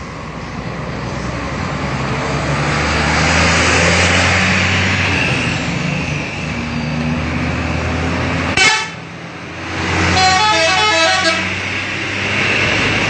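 A heavy bus engine running as the bus passes, growing louder over the first few seconds, with a single sharp knock a little after the middle. About ten seconds in, a telolet multi-tone musical horn plays a quick run of alternating notes for about a second and a half.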